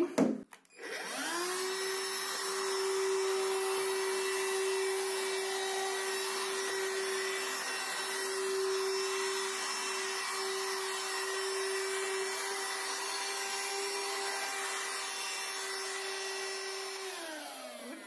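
Ginzzu cordless handheld vacuum cleaner switched on: its motor rises in pitch to speed about a second in, runs at a steady pitch while vacuuming a windowsill, then falls in pitch and dies away as it is switched off near the end.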